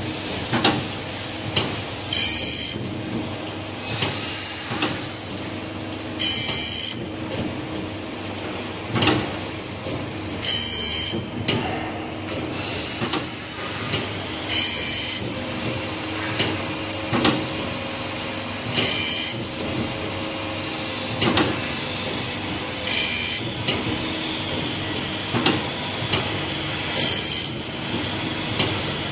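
Automatic band saw blade sharpening machine running its cycle: a steady motor hum under a noisy stroke that repeats about every two seconds as the grinding wheel works the blade tooth by tooth.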